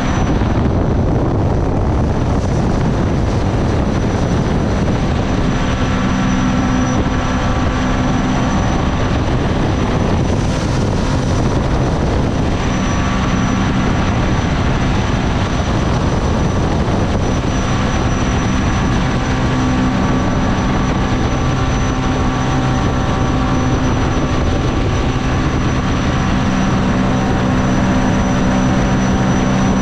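Mini jet boat's supercharged Rotax engine running steadily at speed under a constant rushing noise, with a brief hiss about ten seconds in.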